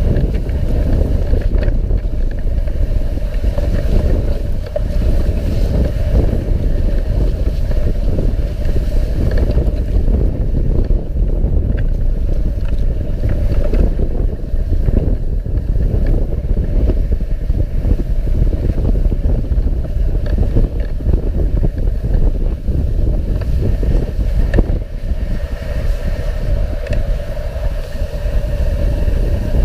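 Dog sled gliding over snow: a loud, steady rush of wind on the sled-mounted camera's microphone, with the runners hissing and scraping over the packed snow trail.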